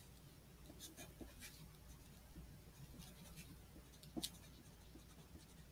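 Faint scratching of a wooden pencil writing letters on paper, in a few short strokes, with one louder brief tap about four seconds in.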